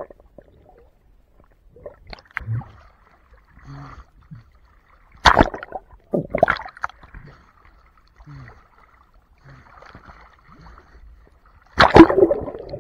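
Water splashing and bubbling, heard muffled through an action camera held underwater: a few sudden loud splashes, two about five to six and a half seconds in and the loudest near the end, with faint murmuring between.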